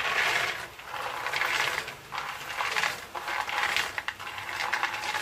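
Raw peanuts being tipped from a bowl into a frying pan of hot oil: a dense clatter and crackle that swells and fades about once a second as each batch slides in.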